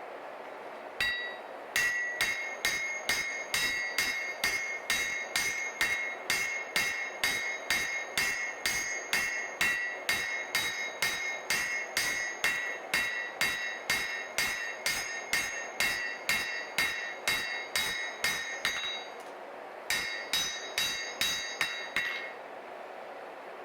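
Steady hammer blows on a ringing steel anvil, about two a second, forging a Damascus steel knife blade. After a long run of blows there is a short pause, then a few more blows, under a steady background rush.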